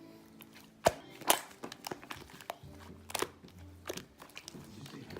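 Slime being squished and poked by hand, giving a series of sharp wet pops and clicks; the loudest come about a second in and again around three seconds in. Faint voices from a TV drama sound underneath.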